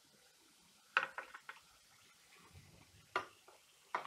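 Kitchen cookware and utensils clinking: a quick cluster of sharp metal clicks about a second in, and one more a little after three seconds.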